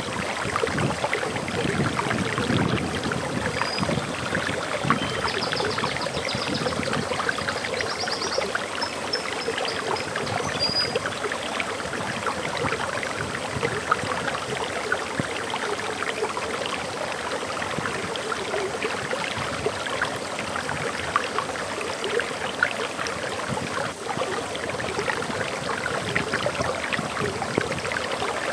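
Water splashing and rushing steadily over a small waterfall. A bird gives a few short, high chirps in the first third.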